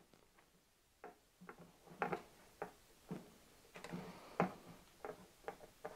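Faint, irregular clicks and taps of hand wiring work: a screwdriver turning a screw on the terminal block of a pulse width modulator module, then wires being handled and set down on a wooden board.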